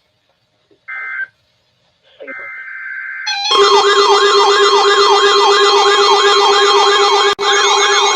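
Emergency alert signal: a few short electronic data-tone bursts, then about three and a half seconds in a loud siren-like alert tone that sweeps up and down about three times a second over a steady low tone.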